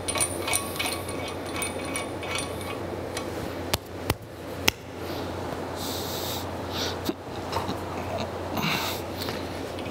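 Light metallic clinks and three sharp taps about four seconds in as square-head bolts are handled and fitted through an anvil's mounting holes into its steel stand, with a couple of brief rubbing sounds later, over a steady low hum.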